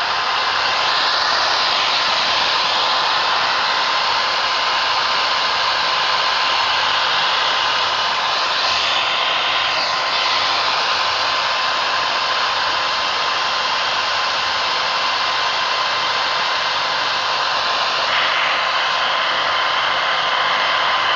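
Electric drill running steadily at speed, driving a water-cooled sharpening stone, a constant motor whine with a thin steady tone; the sound shifts briefly a few times, near the start, about nine seconds in and near the end.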